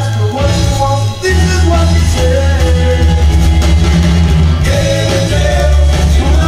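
Garage rock song with singing, drums and guitar, played from a vinyl 45 rpm single on a turntable. A strong, steady bass line runs under the vocal, and the music dips briefly about a second in.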